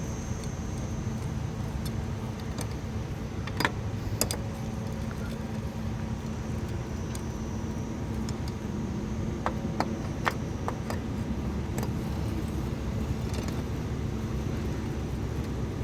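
Scattered sharp metallic clicks and clinks of hand tools and loosened bolts while a scooter's gearbox cover is being opened, over a steady low background hum.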